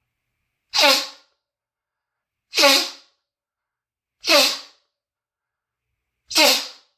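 Four loud, barking croup coughs about two seconds apart, each a short hoarse burst that falls in pitch. The bark comes from a windpipe narrowed by croup.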